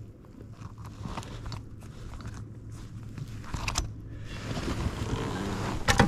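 Close handling noises: scattered clicks, taps and rustles of gear and clothing, with a sharper knock near the end.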